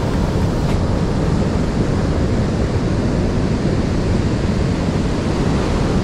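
Ocean surf breaking on the shore mixed with wind buffeting the microphone: a steady, heavy rushing noise, strongest in the low end.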